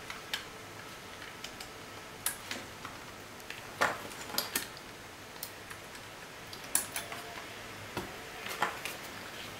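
Scattered light clicks and taps from RS-232 cable plugs being pushed into small media player boards and the players being handled on a table, about a dozen over the stretch, the clearest near the middle.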